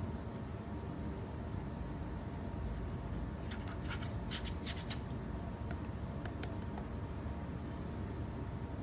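Hands handling packaging during an unboxing: light rubbing and scratching, with scattered soft ticks over a steady low background.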